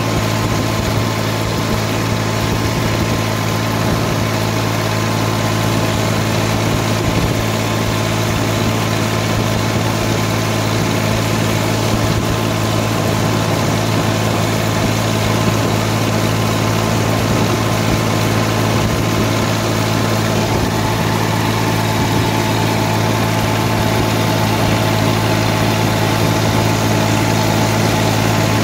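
Massey Ferguson 240 tractor's three-cylinder diesel engine running steadily at an even speed as the tractor drives along, heard from the driver's seat beside the upright exhaust stack.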